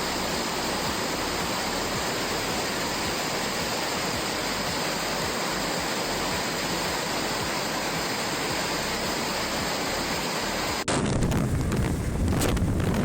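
A steady rushing noise. About eleven seconds in it cuts abruptly to louder, rougher wind buffeting the microphone.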